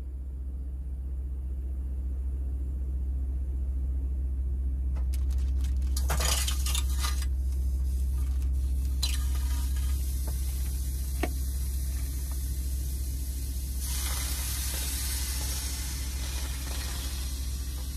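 Sausages sizzling in a frying pan on a portable cassette gas stove. A few light clicks and the sizzle start about five seconds in as the sausages go into the hot pan. About fourteen seconds in, water poured into the pan brings a louder hiss of sizzling and steam for a few seconds.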